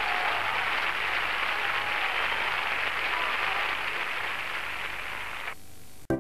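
A large crowd applauding steadily, fading down and cutting off abruptly near the end.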